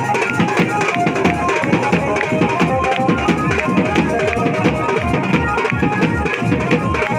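Indian wedding band (band baja) playing a lively tune over rapid drumming.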